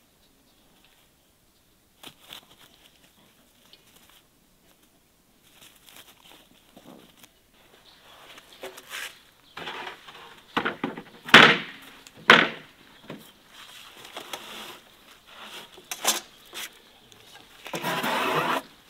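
Wooden planks being handled and laid on a metal-framed table: scattered knocks and clatter, two loud clunks of boards set down about two-thirds of the way through, and a plank scraping as it slides across the others near the end.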